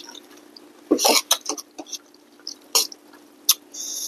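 Rice noodle soup being eaten: wet slurps and clicks of spoons on ceramic bowls, the loudest cluster about a second in, and a hissing slurp of noodles near the end.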